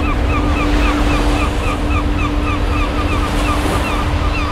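Churning wake water rushing behind a moving ship, mixed with wind buffeting the microphone. A steady low hum runs underneath.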